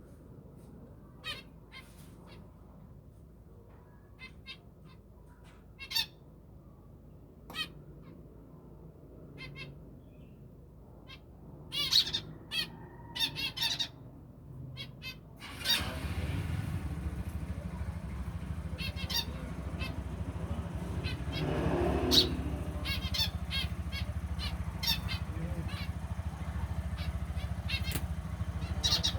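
Pet finches giving short, high chirps and squawks, scattered singly and in a quick cluster about halfway through. From about halfway on, a steady low hum runs underneath.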